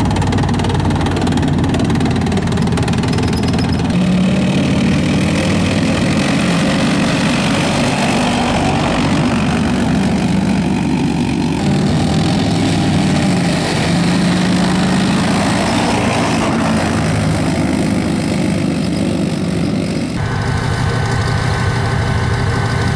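Diesel engine of an ASCOD Ulan tracked infantry fighting vehicle running loudly and steadily. About twenty seconds in the sound changes abruptly to a closer engine with a steady high whine over it.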